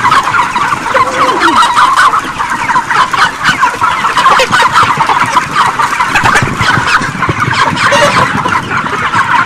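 A large crowded flock of broiler chickens clucking and chirping, a constant chorus of many overlapping calls.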